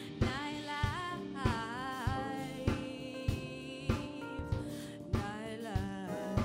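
A woman singing with sliding vocal runs over a live band of keyboard, electric bass and drum kit, the drums keeping a steady beat.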